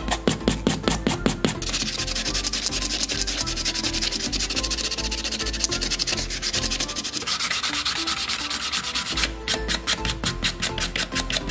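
Sanding sponge scrubbed back and forth over the underside of a 1:24 scale model car. It starts as quick, even strokes, about six a second, runs together into continuous fast scrubbing, and near the end breaks back into separate strokes.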